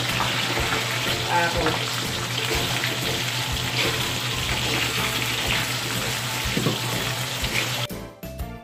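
Potato cubes and carrot slices frying in hot oil in an aluminium wok, a steady loud sizzle, with a wooden spatula scraping and stirring them. Near the end the sizzle cuts off abruptly and a tinkling music jingle begins.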